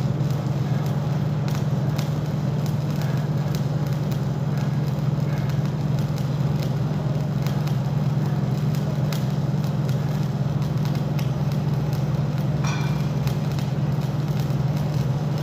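Arc welding on a steel auger: a continuous crackle of the arc over a steady low hum.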